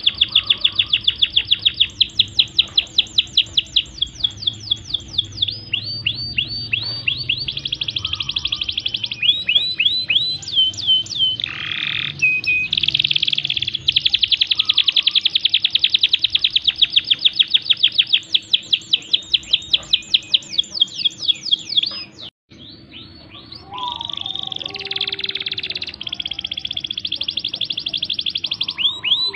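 Domestic canary, a pied white-and-grey bird, singing a long high-pitched song of rapid trills: runs of quickly repeated notes that change speed and pitch from roll to roll, with a brief break about two-thirds of the way through.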